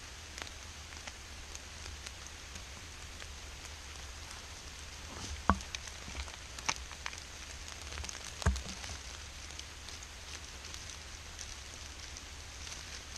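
Steady rain falling, with many small drop ticks over a low rumble. Two louder thumps land about five and a half and eight and a half seconds in.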